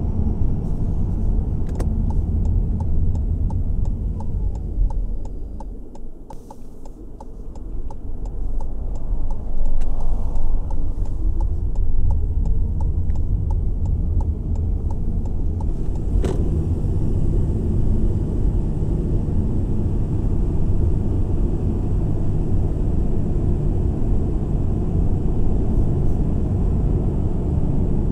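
A car driving on a road: steady low tyre-and-engine rumble. It fades for a couple of seconds about six seconds in, then comes back with a faint rising tone as the car picks up speed.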